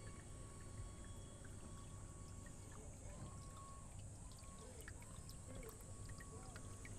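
Faint water trickling into an outdoor medaka biotope tank, with scattered small drips and splashes over a steady high hiss.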